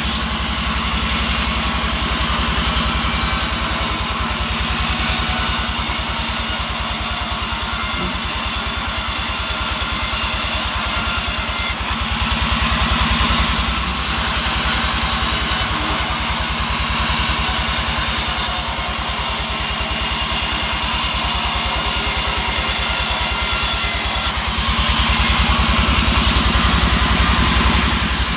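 Engine-driven sawmill running steadily while sawing a pine log. The engine holds an even note under the saw's high, rushing cutting noise, which strengthens near the end.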